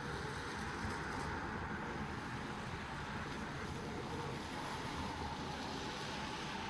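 Steady drizzle falling, an even, continuous hiss.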